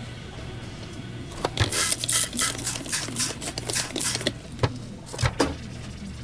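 A quick run of rubbing or scraping strokes starts about a second in, with a couple of sharp knocks later on, over a steady low hum.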